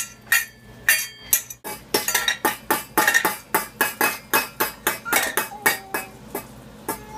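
Small stainless steel saucepans being struck and stirred with a wire whisk and other small metal utensils: irregular metal-on-metal clinks and clanks, about three a second, each ringing briefly.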